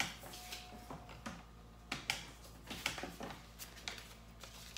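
Irregular light clicks and taps of hands handling things on a tabletop, a dozen or so, with the sharpest at the very start.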